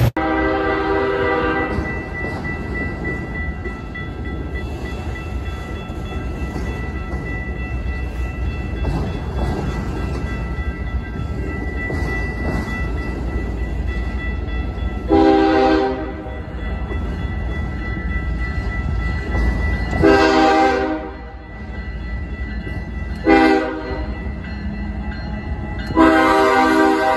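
Canadian Pacific 8829's air horn blowing a long blast at the start. Later it gives the grade-crossing signal, long, long, short, long, over the steady rumble of freight cars rolling past. The last long blast is still sounding at the end.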